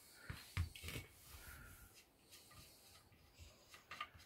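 Faint handling noise from a chrome metal furniture leg and the plug on its end: a few light clicks and knocks, some about a second in and a couple more near the end.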